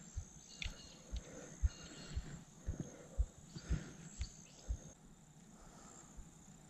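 Quiet outdoor sound: soft, irregular low thumps about twice a second for the first five seconds, over a faint, steady high insect drone.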